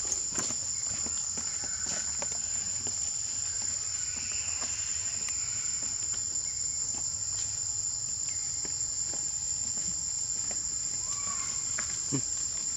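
Steady high-pitched insect chorus that drones without a break, with scattered faint clicks and rustles over it.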